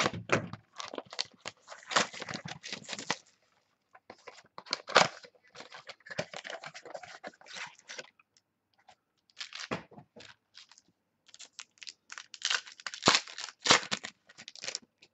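Foil wrapper of a Topps Finest football card pack being torn open and crinkled while the cards inside are handled: irregular bursts of crackling and rustling with short pauses.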